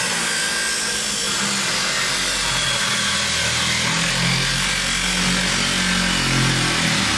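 Angle grinder with a cutting disc cutting through the steel bottom of a Land Rover bulkhead: a steady, harsh cutting noise.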